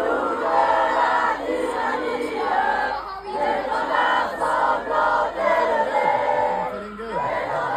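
A crowd of many voices calling out and cheering together, overlapping throughout.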